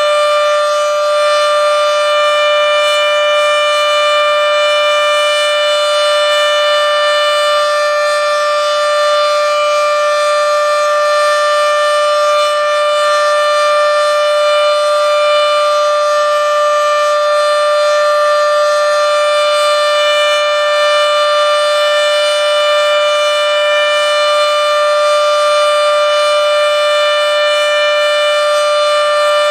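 Federal Signal Model 7B outdoor warning siren sounding a long, steady alert tone at one held pitch, very loud, running short of its full pitch.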